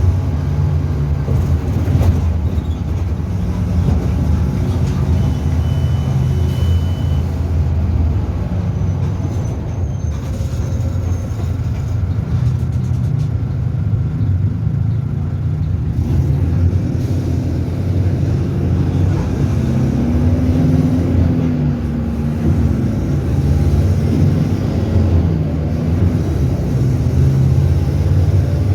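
Mercedes-Benz OF-1722M bus's diesel engine running steadily, with its energy mostly deep and low and only small rises and falls in level.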